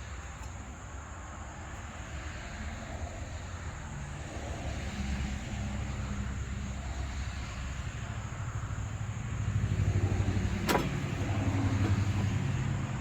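Stihl FS 111 R brushcutter's small 4-MIX engine running, low and even at first, then speeding up about five seconds in and more strongly from about nine seconds. There is a sharp click about eleven seconds in.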